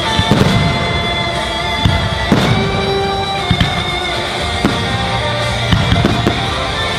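Music with sustained notes, with fireworks bursting over it: a sharp bang about every second.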